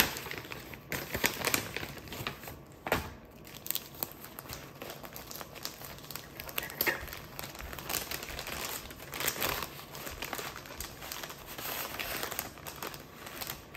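Plastic bag and paper wrapping crinkling and rustling as a sandwich is unwrapped by hand, in irregular rustles with a sharper crackle about three seconds in.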